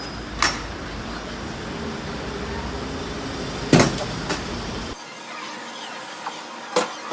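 Steady road-traffic noise with a low rumble and a few sharp clicks. The rumble drops away about five seconds in.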